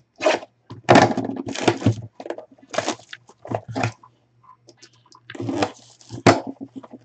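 Clear plastic shrink wrap crinkling in irregular crackles as it is slit and peeled off a small cardboard box.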